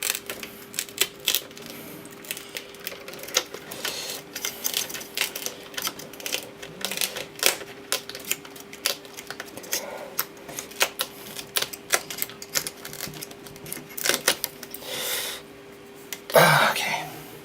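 Fast, irregular small clicks and taps of the Asus GL502V laptop's screen panel and bezel being handled and worked loose from the lid by hand. A couple of longer rubbing, peeling sounds come near the end, with a faint steady hum underneath.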